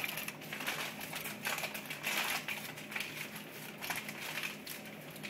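Aluminium foil crinkling and rustling in irregular spurts as a foil packet is folded and rolled shut by hand.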